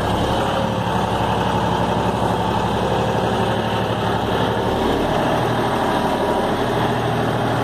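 John Deere 55 hp four-wheel-drive tractor's diesel engine running steadily under load as it pulls a two-bottom mouldboard plough through the soil.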